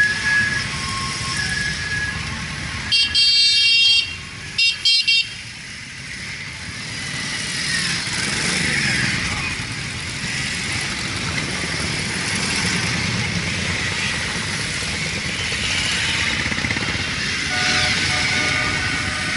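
Motorcycles riding past in a steady stream, engines running and revving. A horn sounds in one long blast about three seconds in, then two short blasts, and again near the end.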